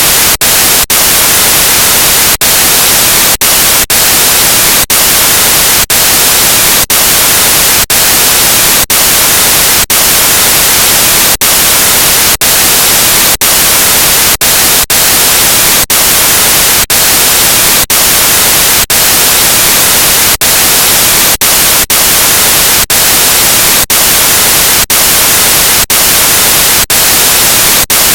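Loud, steady static hiss, cut by brief dropouts roughly once a second at uneven intervals.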